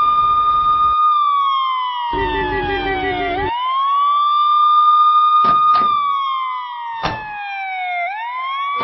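Ambulance siren wailing: the pitch climbs quickly, holds, then slides slowly down, in two long cycles. A few sharp clicks sound in the second half.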